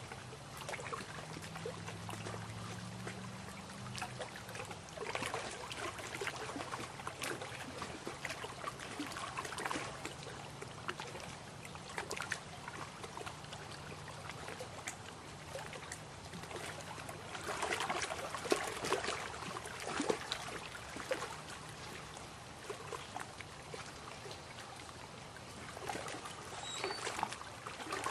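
Lake water lapping and trickling at the shore, a continuous splashy crackle that swells and eases, with a faint low hum underneath.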